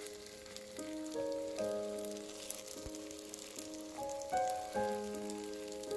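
Chive pancakes sizzling and crackling as they fry in oil in a pan, with slow background music of held notes over it.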